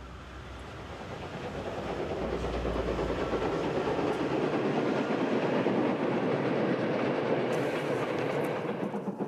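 Steam-hauled train passing, its rumbling clatter building over the first few seconds and staying loud. Near the end it turns into an even clickety-clack of wheels over rail joints.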